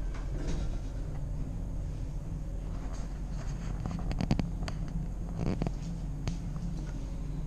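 Steady low hum inside an elevator car, with scratchy rubbing and a short cluster of clicks from the handheld camera about four seconds in and again near five and a half seconds.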